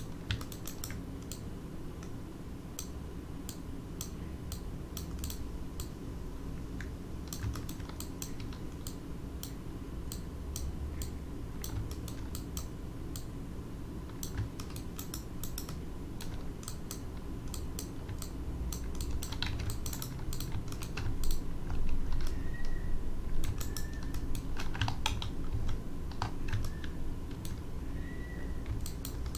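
Computer keyboard keys and mouse buttons clicking at an irregular pace, over a low steady hum.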